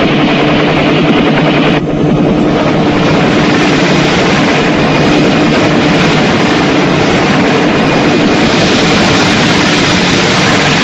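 Helicopter arriving, its engine and rotor running loud and steady.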